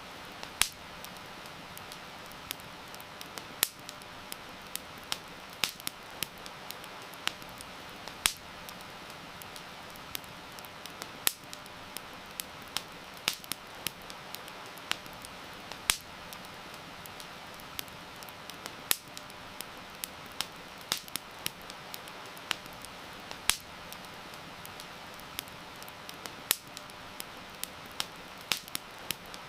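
Wood campfire crackling, with irregular sharp pops several times a second, over a steady hiss of heavy rain.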